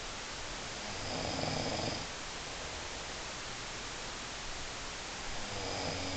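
Snoring: one drawn-out snore about a second in, and another starting near the end, over a steady hiss.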